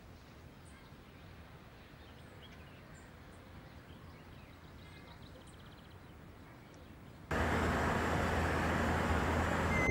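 Faint room tone, then a sudden cut about seven seconds in to steady traffic and road noise from a car driving along a street.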